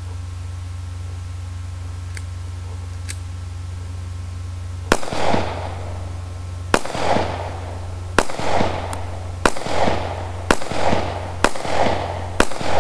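Taurus PT709 Slim 9mm pistol fired seven times, starting about five seconds in, at roughly a shot every one to one and a half seconds, each report trailing off in a brief echo. Two faint clicks come in the first few seconds before the shooting starts.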